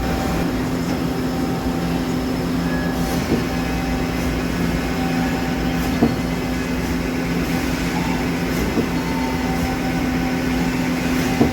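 Nakamura-Tome AS-200Y CNC turning center running its warm-up cycle at high speed: a steady machine hum with a few faint clicks.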